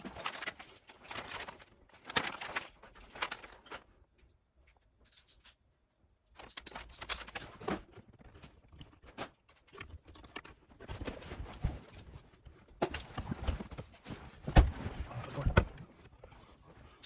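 Irregular metallic clicks, clacks and knocks of hand tools and parts being handled and set down, with scuffing between them and a brief quiet spell about a third of the way through.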